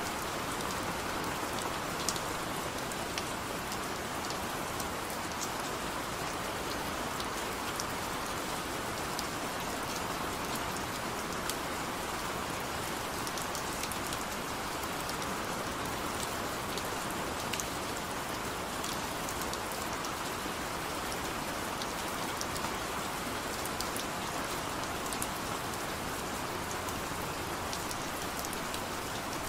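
Steady rain falling: an even, continuous hiss with scattered sharp ticks of single drops striking.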